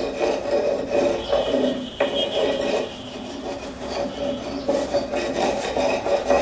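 A hand-held grinding stone rasping back and forth over the base of a fully cured cement flower pot, in uneven repeated strokes, grinding down rough, bumpy spots on the dry cement.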